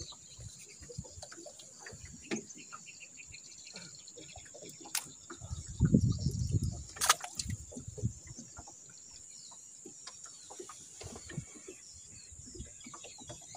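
Quiet river ambience with a steady high-pitched insect drone, scattered small clicks and knocks from handling gear in the boat, and a brief low rumble about six seconds in.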